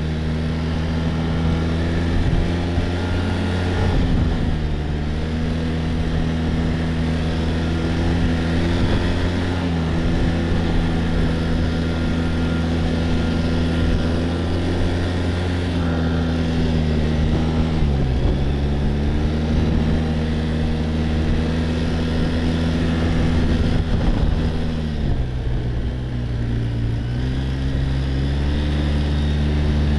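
Quad bike (ATV) engine running under way at a steady pace. Its revs dip and climb back three times: briefly a few seconds in, more deeply about midway, and again late on.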